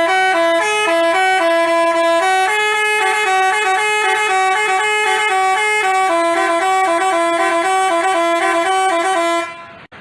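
Telolet basuri multi-tone bus horn playing a quick tune of stepped notes, each a fraction of a second long. The tune cuts off abruptly just before the end.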